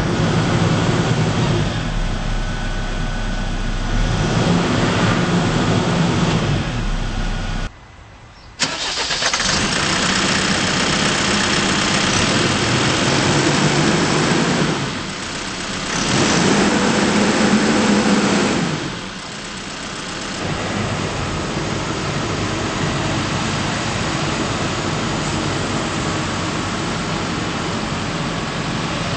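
Diesel engine of a Case 580N backhoe loader running, rising in revs twice, about four seconds in and again about sixteen seconds in, then settling back. About eight seconds in the sound drops out abruptly for a second.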